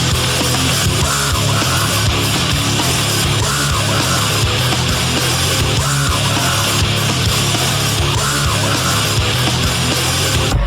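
Loud heavy-metal-style music with a driving, repeating beat that changes abruptly at the very end.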